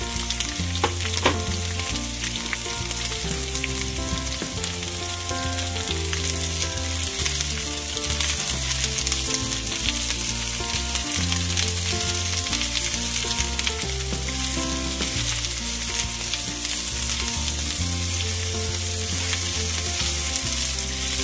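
Sliced onions and green bell peppers sizzling in hot oil in a nonstick frying pan, with a couple of sharp clatters about a second in as they tip in from a plate, then stirred with a spatula.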